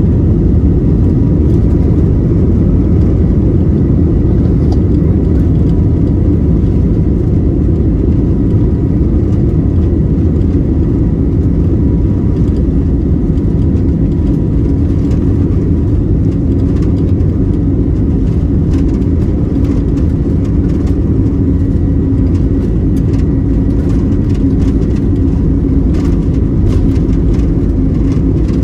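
Steady drone inside an Airbus A320neo cabin: the CFM LEAP-1A turbofans and the airflow make a loud, even low rumble, with faint steady whining tones above it.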